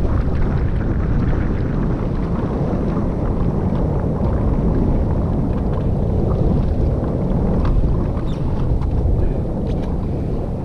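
Strong wind buffeting the microphone: a loud, steady, low rumbling roar on open water from a rowboat, with a few faint knocks near the end.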